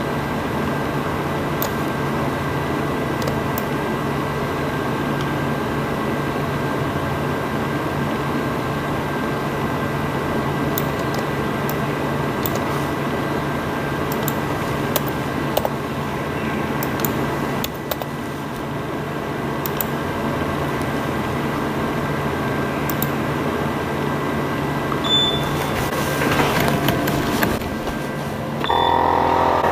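Steady whir of fans and machine hum with a few light clicks. Near the end a louder, multi-toned machine drone starts up as the laser engraver is set running.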